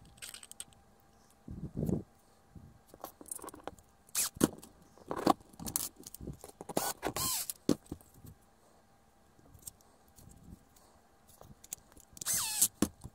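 Small metal screws and 3D-printed plastic parts being handled and set in place, making scattered clicks, rattles and scrapes. Near the end a cordless drill-driver runs briefly, driving a screw into the plastic slewring plate.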